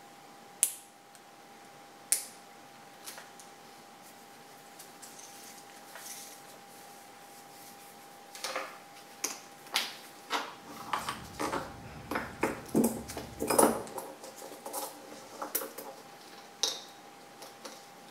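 Steel gears and shafts of a Borg-Warner T56 six-speed manual transmission clinking as they are handled, a few sharp clicks at first, then a busy run of metal knocks and rattles from about eight to fifteen seconds in as a gear is moved on the shaft.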